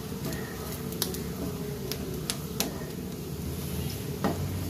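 A spatula stirring and scraping grated coconut and spices as they roast in a nonstick frying pan, with a handful of sharp clicks of the spatula against the pan over a steady low rumble.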